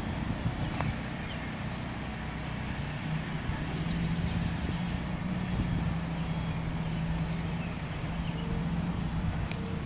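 Portable generators humming steadily, a low, even engine drone.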